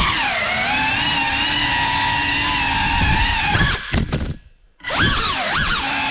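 Whine of a GEPRC CineLog 35 cinewhoop's brushless motors and ducted propellers in flight, holding a steady pitch for about three seconds. About four seconds in it nearly drops out for half a second as the throttle is chopped, then comes back with the pitch swinging up and down.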